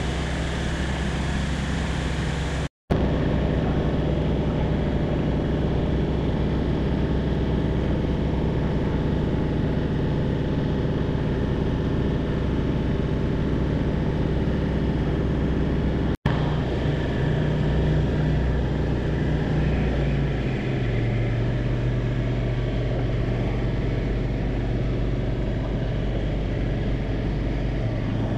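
Light aircraft's engine and propeller droning steadily as heard in the cockpit. The sound cuts out briefly twice, about three and sixteen seconds in, and the engine note shifts in pitch about two thirds of the way through.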